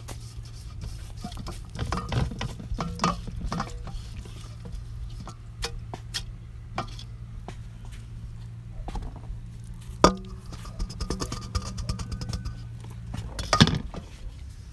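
Scattered clinks, scrapes and knocks of a steel bowl and a bamboo tube being handled as chili marinade is scraped out and packed into the tube, with a sharper knock about ten seconds in and another near the end. Under them runs a steady low hum from nearby work that stops shortly before the end.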